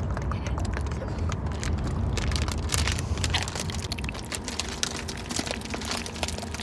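Rapid, irregular crunching and crackling clicks over a steady low rumble.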